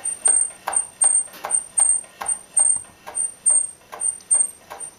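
Jointer cutterhead knife lightly catching the wooden setting block as the cutterhead is worked back and forth by hand, giving light, even ticks about two or three a second. The knife is being set so that it just touches the block.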